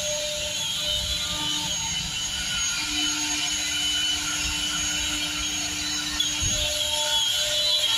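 A CNC router's spindle running and cutting 18 mm PVC board: a steady high whine with cutting hiss. A lower, even hum comes in about three seconds in and fades a little after seven.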